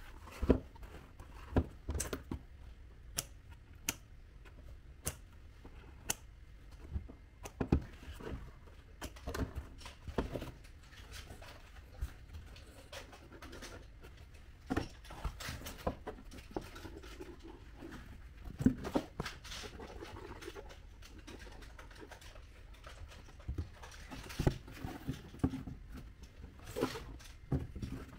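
Cardboard being handled and worked by hand: irregular light taps, clicks and scratches, with an occasional louder knock.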